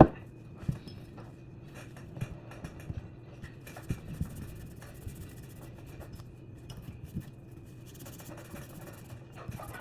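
Scrubbing built-up carbon off a Glock 48 pistol part during cleaning: soft scratchy strokes with scattered clicks and taps as the parts are handled, and a sharp click right at the start.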